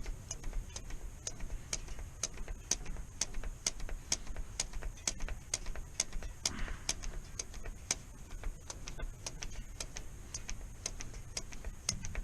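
Rapid, regular mechanical ticking, about three ticks a second, over a low steady hum.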